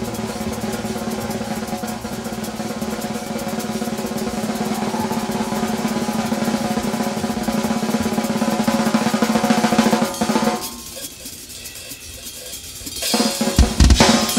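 Drum kit played solo: a fast, even drum roll for about ten seconds, dropping to quieter playing for a couple of seconds, then heavy bass-drum strokes come in near the end.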